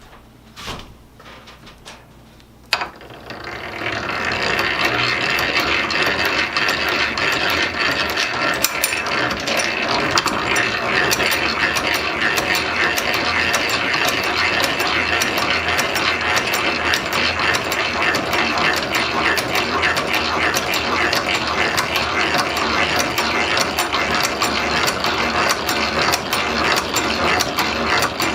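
Hand-cranked drill press boring a 5/16-inch hole: its gears and feed ratchet clatter rapidly and continuously as it is cranked. The clatter starts about three seconds in, after a few light clicks.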